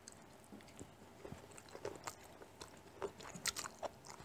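Faint close-up eating sounds of two people eating japchae, stir-fried glass noodles with vegetables: chewing, with scattered short smacks and clicks.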